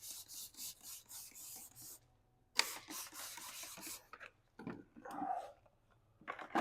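Brush scrubbing a car tire: quick rubbing strokes, about four a second, in two runs with a short pause between, then a few scattered strokes.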